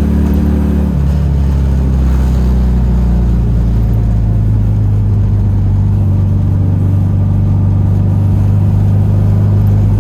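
Classic Fiat 500's air-cooled two-cylinder engine running as the car drives, with a steady, loud engine note that drops in pitch about a second in and then holds.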